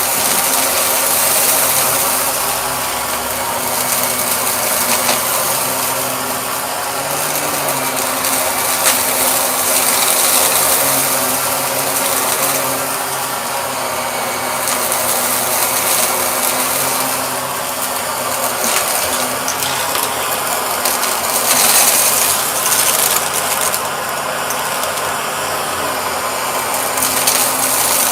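Shark vacuum cleaner running steadily: a low motor hum under a loud rush of air that swells and fades unevenly every few seconds.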